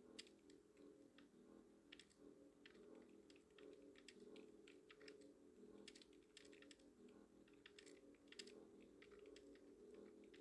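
Near silence broken by faint, irregular clicks of typing on a computer keyboard, over a faint steady low hum.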